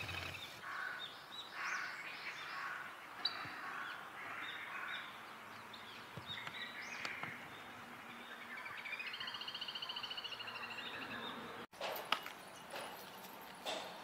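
Wild songbirds calling: scattered short chirps and call notes, with a fast, even trill lasting about two seconds a little past the middle.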